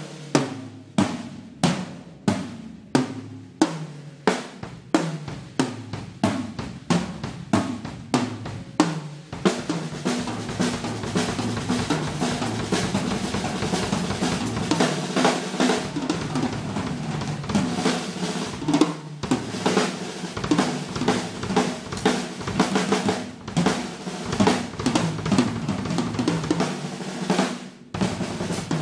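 Yamaha Live Custom oak drum kit played in a solo: separate ringing tom and drum strokes about two a second, turning about ten seconds in into dense fast playing on drums and cymbals. The playing breaks off briefly just before the end.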